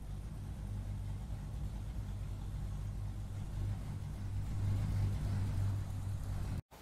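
A steady low-pitched hum, swelling slightly past the middle, that cuts off abruptly near the end.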